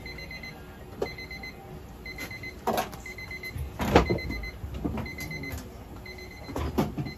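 An electronic alarm beeper going off in quick groups of high beeps, about one group a second. Several brief knocks and rustles are heard over it, the loudest about four seconds in.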